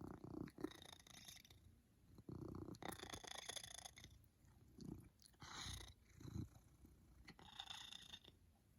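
Faint snoring from a sleeping animal: a soft rasp with each breath, about every two seconds.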